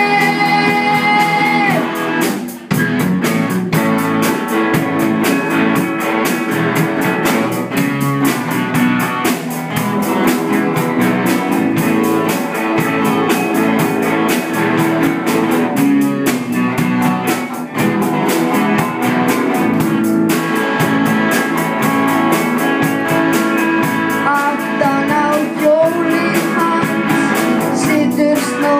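A live band of young players performing a rock and roll song: electric guitars and a drum kit with sung vocals. A held sung note ends about two seconds in.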